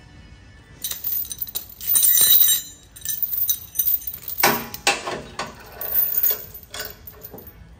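Steel chain rattling and clinking as it is handled and hooked around a chrome truck bumper: irregular metallic jangles and clanks, loudest about two seconds in and again between about four and seven seconds.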